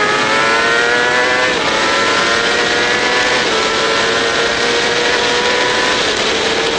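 Triumph race motorcycle's engine heard onboard at racing speed. It climbs in pitch and upshifts about one and a half and three and a half seconds in, each shift a sudden drop in pitch, then holds a nearly steady note with a small step down near the end. Heavy wind rush runs under it.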